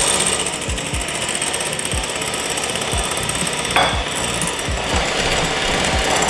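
Electric hand mixer running steadily, its twin wire beaters whisking egg whites and icing sugar in a glass bowl.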